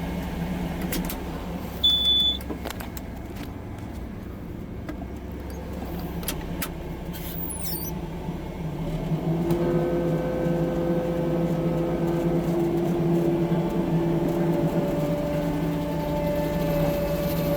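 A vehicle engine running steadily with a low hum. A short, high beep sounds about two seconds in, and steady held tones come in about halfway through.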